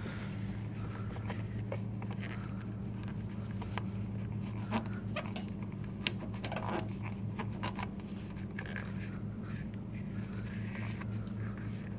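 Hands working a rubber protective boot over the ignition coil's wire connections on a scooter: soft rubbing and scraping with scattered small clicks. A steady low hum runs underneath.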